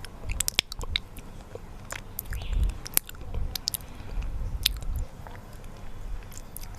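Close-miked eating of honey: sticky chewing with many sharp, wet mouth and lip clicks.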